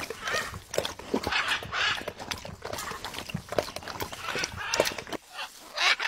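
Blue-and-yellow macaw's beak biting and tearing at a green coconut husk: irregular sharp cracks and clicks mixed with short scratchy crunching.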